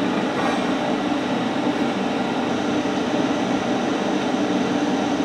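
Steady machine fan hum with a constant low drone underneath, running evenly without change.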